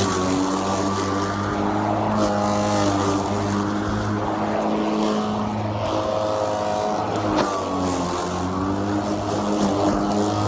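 Greenworks 80V brushless cordless push mower running and cutting grass: a steady motor-and-blade hum whose pitch sags and recovers a couple of times as the blade meets thicker grass.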